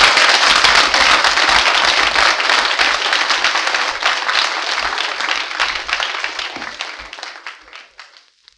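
Audience applauding, a dense clatter of many hands clapping that fades away over the last couple of seconds.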